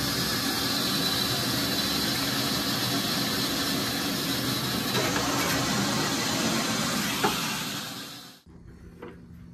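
Steady hissing rush of water through a venturi injector and the plumbing of a well-water iron filter in backwash, drawing Iron Out cleaning solution up a suction tube from a bucket. It fades out about eight seconds in.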